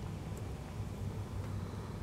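Steady low background rumble of room noise, with a tiny faint tick about half a second in.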